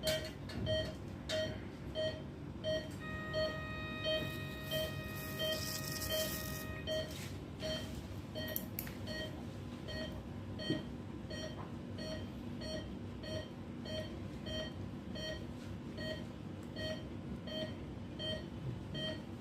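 Operating-theatre patient monitor beeping steadily, a short pitched pulse-oximeter beep about three times every two seconds with each heartbeat. From about three to seven seconds in, a separate steady higher tone sounds alongside it.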